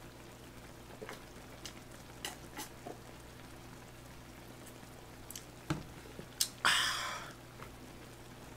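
A man drinking makgeolli from a plastic jug with a few soft gulping swallows. Near the end come a couple of knocks as the jug is set down, then a short, loud breathy exhale after the drink. A faint simmer and a low electrical hum run underneath.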